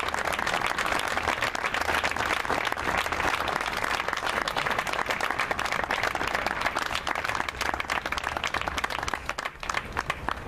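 Audience applauding: dense clapping that thins to a few scattered claps near the end, then stops.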